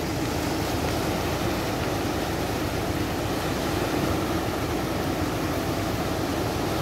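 Tidal bore (the Bono) surging up the Kampar River: brown waves breaking and churning along the bank, giving a steady, low rushing of water.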